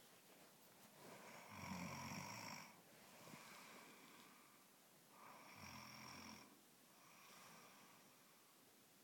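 A woman snoring in her sleep: two snores, each about a second long and about four seconds apart, with softer breaths between them.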